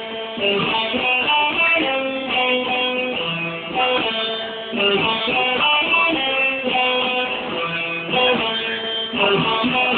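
Electric guitar being played, a steady run of strummed chords and picked notes that change every second or less.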